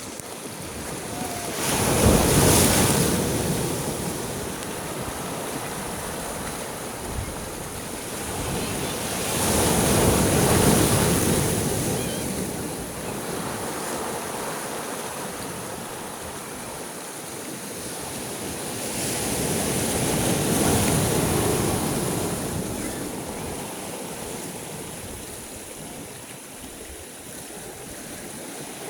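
Sea waves washing in, three swells building up and slowly fading roughly every eight to ten seconds, over a steady background wash of water.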